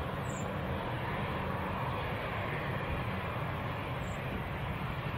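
Embraer regional jet's turbofan engines running at taxi power, a steady rumble and hiss.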